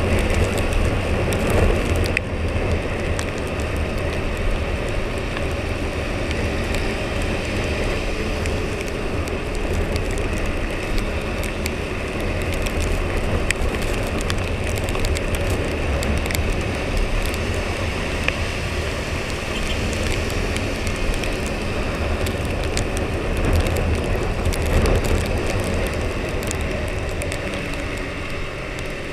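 Husqvarna Svartpilen 401's single-cylinder engine running steadily under way, mixed with wind and wet-road noise, and scattered small ticks and crackles of rain.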